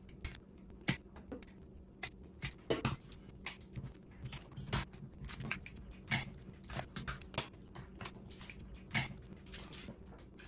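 Spiny lobster tail shell crunching and cracking as kitchen shears cut down it and hands pull it apart: a run of irregular clicks and snaps, with a few sharper cracks.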